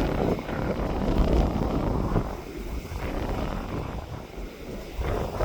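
Wind buffeting a smartphone's microphone in irregular gusts, a low rumble that eases about halfway through and picks up again near the end.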